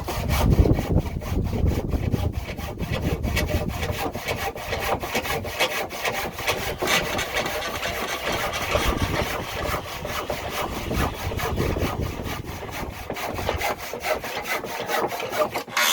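Hand saw cutting through wood in a steady rhythm of back-and-forth strokes.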